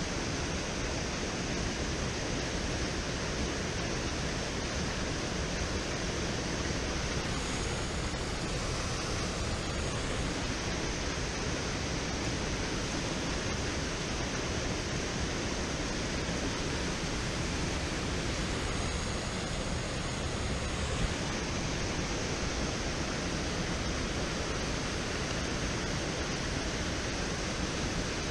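Water rushing steadily out of a dam's outflow, an even, unbroken rush of flowing current.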